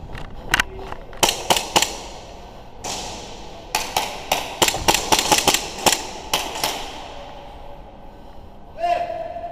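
Airsoft guns firing single shots in short strings: a few sharp cracks in the first two seconds, then a quicker run of about a dozen from about four to seven seconds in.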